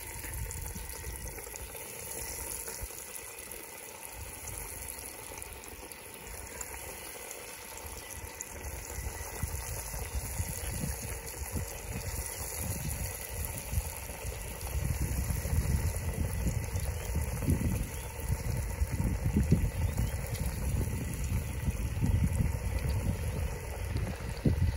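Breaded yellow perch fillets frying in a pot of hot oil on a propane Cajun cooker: a steady hissing, bubbling sizzle as more pieces are dropped in. A gusty low rumble grows louder about halfway through.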